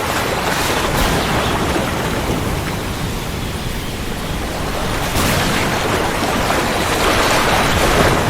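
Steady heavy rain with low rumbling thunder; the storm grows louder about five seconds in.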